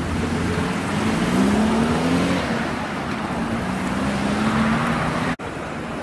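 Road traffic: a motor vehicle's engine running over a steady hiss of street noise, its pitch rising a little after about a second, then holding steady. The sound cuts out abruptly for an instant near the end.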